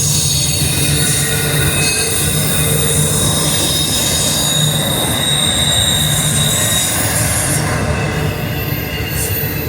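A freight train rolling past, its wheels squealing in thin high tones that waver and shift over the steady rumble of the cars.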